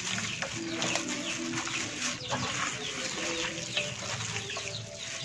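Chickens calling: many short, high, falling chirps several times a second, with some lower clucking notes.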